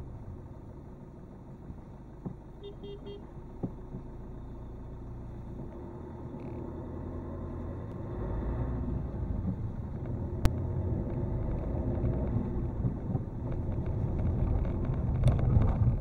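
Car driving noise heard from inside the cabin: low engine and tyre rumble at crawling speed that grows louder from about halfway through as the car picks up speed again. A single sharp click sounds partway through.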